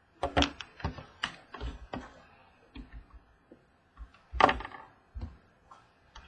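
Irregular clicks and light knocks of small hard objects being handled at a table, the loudest about four and a half seconds in.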